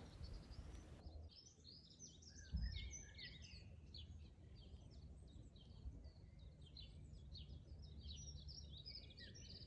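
Faint birdsong: a dense run of short, high chirps and twitters that starts about a second in, with a soft low thump about two and a half seconds in.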